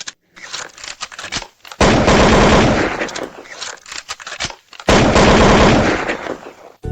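Two long bursts of rapid automatic gunfire, each about a second and a half, with scattered single sharp cracks before and between them.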